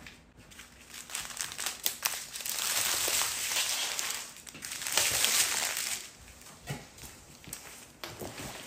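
Plastic crinkling and rustling as small bags of diamond-painting drills are swept off a plastic-covered diamond-painting canvas and the canvas is turned over. It is full of small crackles, heaviest from about a second in to about six seconds in, peaking twice, then dies down to lighter rustling.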